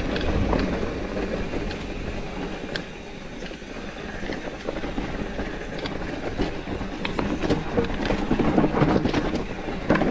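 Mountain bike rolling along a forest trail: tyre noise on dirt with scattered clicks and rattles from the bike, growing busier near the end.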